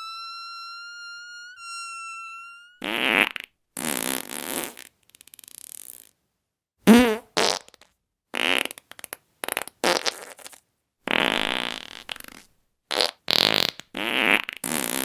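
A held high tone for about the first three seconds, then a rapid string of about fifteen short fart sounds, one after another, each lasting well under a second.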